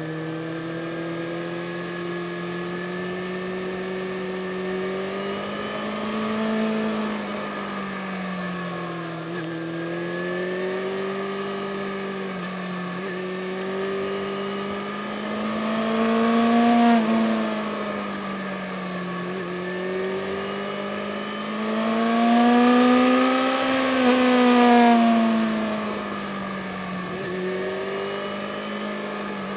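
Yamaha FZ6 Fazer S2's inline-four engine running under way up a mountain road, its note rising and falling as the throttle is rolled on and off through the bends. It surges louder with climbing pitch twice, just past halfway and again about three-quarters in, with wind rush on the microphone as it speeds up.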